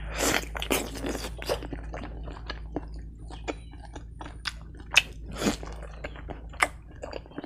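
Close-up chewing of a mouthful of boiled fatty pork and rice: irregular wet mouth clicks and smacks, thickest in the first second and a half, then sparser, with single sharp clicks around five and six and a half seconds.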